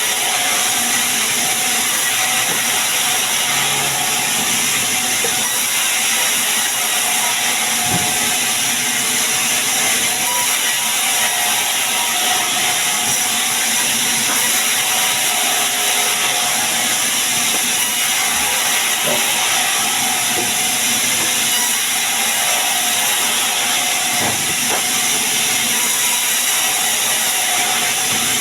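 Sawmill saw running at the sengon wood, a loud, steady hiss that does not let up.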